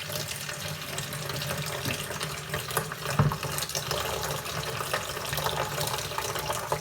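Kitchen tap running into the sink during washing up, with a single knock about three seconds in.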